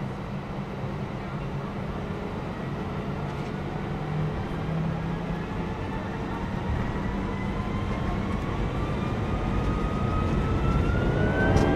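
Airbus A320 jet engine heard from inside the cabin over a steady low rumble. From about halfway through, a whine rises steadily in pitch and the sound grows louder as the engines spool up for the takeoff roll.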